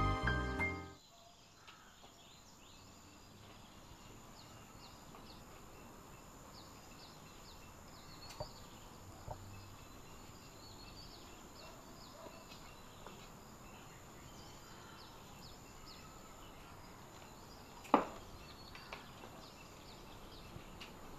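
Faint garden ambience with small birds chirping in short, high, scattered calls over a steady hiss, after background music ends about a second in. A couple of light clicks come midway, and one sharp knock near the end is the loudest sound.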